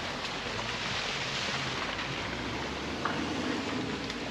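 Steady rushing of water flowing through the stream and flooded ford, with a brief sharper sound about three seconds in.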